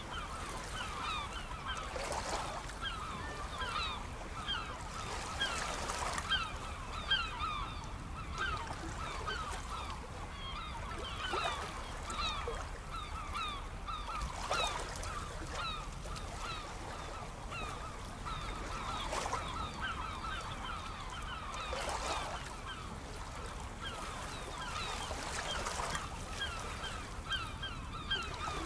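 A large flock of birds calling without pause, many short, falling cries overlapping, over the wash of waves surging in every few seconds.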